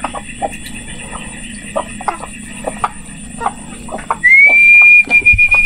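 Chickens making short, soft sounds in a coop over a faint steady high hum. About four seconds in, a loud, shrill whistle-like tone starts, rises briefly in pitch and then holds steady.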